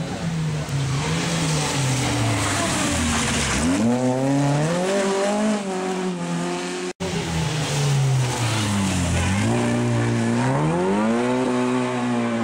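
Rally car engine approaching unseen: the note drops as the car slows and changes down, then climbs steeply as it accelerates hard. After a break about seven seconds in, the same falling and then rising engine note comes again.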